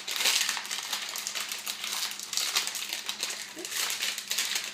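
Blind-bag wrappers crinkling and rustling in irregular bursts as they are worked at and pulled to tear them open.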